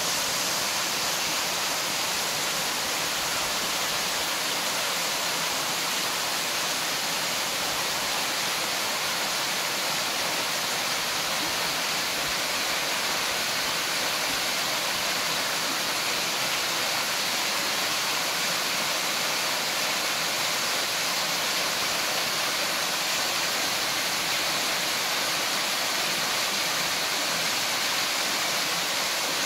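Small waterfall spilling over a stone wall into a rocky pool: a steady, unbroken rush of falling water, mostly a bright hiss with little low rumble.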